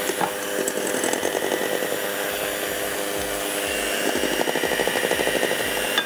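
Electric hand mixer running steadily, its beaters whipping eggs in a glass bowl as sugar is added a little at a time. A regular pulsing sets in about two seconds in as the beaters work around the bowl.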